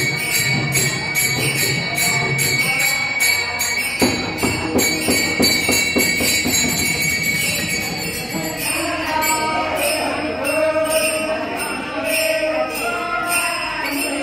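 Live bhajan: small hand cymbals clashing on a steady beat, about two to three strikes a second, over harmonium and drum. A woman's singing voice comes in about eight seconds in.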